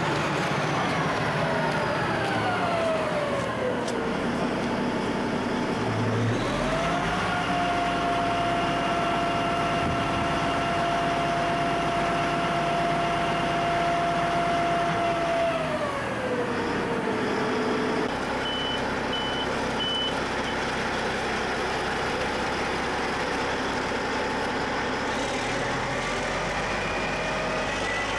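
Rotary snow-removal truck's engine and spinning auger/blower running down in pitch, then revving up to a steady whine for about nine seconds and winding down again. Three short high beeps follow.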